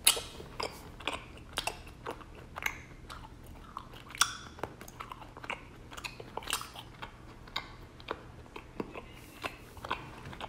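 Raw honeycomb being chewed and pulled apart by sticky, honey-covered fingers close to the microphone: irregular wet smacking clicks, one or two a second, the sharpest right at the start and another about four seconds in.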